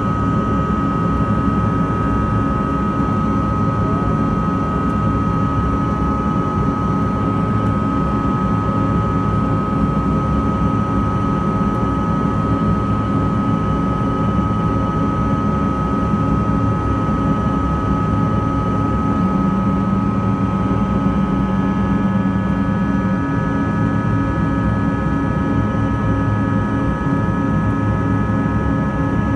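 Cabin noise of a Bombardier CRJ200 during the climb after takeoff: its rear-mounted General Electric CF34 turbofans give a steady rumble with a constant whine. A second, higher whine joins about three quarters of the way through.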